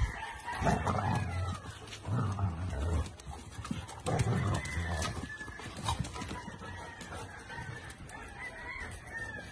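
A rooster crowing and clucking in the background, over several loud low rumbling bursts in the first half.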